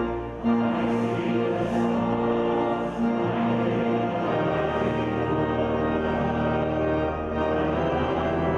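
Congregation singing a hymn to organ accompaniment, in long held notes.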